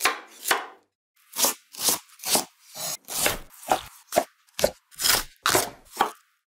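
Kitchen knife slicing through vegetables (carrot, cherry tomato, bamboo shoot) onto a wooden cutting board: a dozen or so separate cuts, each a crisp knock of the blade on the board, about two a second.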